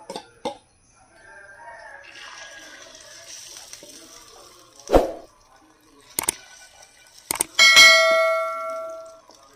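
A steel spoon knocking against a stainless steel bowl several times, the loudest strike near the end setting the bowl ringing for over a second before it fades. Earlier, a soft sizzle as egg batter goes into the hot unniyappam pan.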